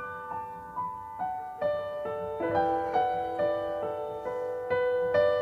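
Background music: a gentle piano melody of single struck notes, about two a second, each fading before the next.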